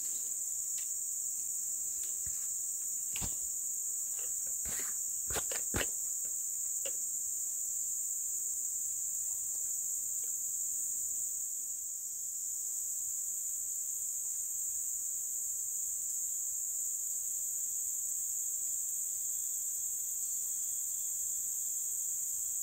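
Forest insects keeping up a steady, high-pitched chorus, with a few faint clicks and taps in the first six seconds.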